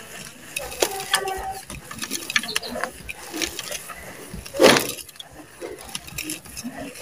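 Hands crushing and crumbling dry, gritty red sand-cement inside a terracotta clay pot: a crunchy, grainy crackle with many small sharp clicks, and one louder gritty rush about two-thirds of the way through.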